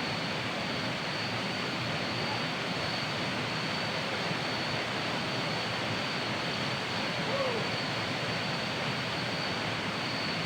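Steady rush of a waterfall, an unbroken even roar of falling water, with a thin, constant high whine above it.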